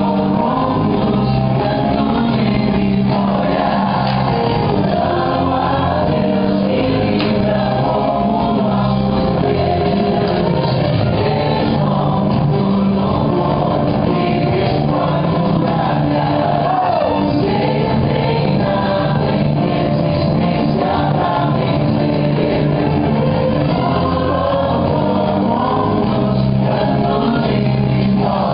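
Gospel praise music with singing, loud and steady throughout.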